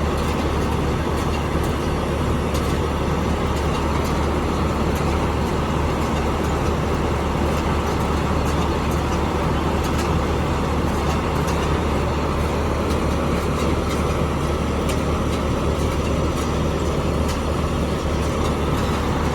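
Yanmar rice combine harvester's diesel engine running steadily as the machine drives, with scattered light clicks over the steady hum.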